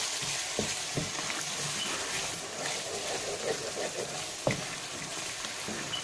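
Thick onion-tomato masala gravy sizzling in a non-stick frying pan while a wooden spatula stirs it, with a few light knocks of the spatula against the pan.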